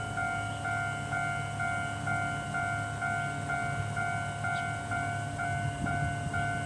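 Level-crossing warning bell ringing a steady electronic ding, about twice a second, while the barriers are down.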